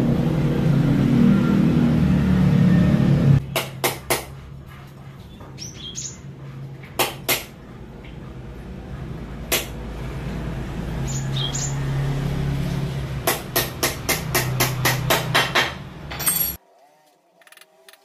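Small hammer tapping tiny nails into a wooden bird cage frame: a few scattered taps, then a quick run of about a dozen taps near the end. A steady low hum fills the first few seconds, and a bird chirps briefly twice.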